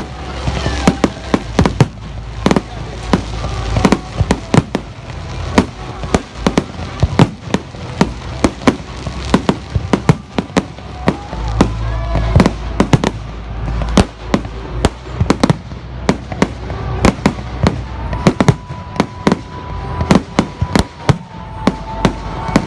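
Fireworks going off: a fast, irregular run of sharp bangs and cracks, several a second, over a low rumble.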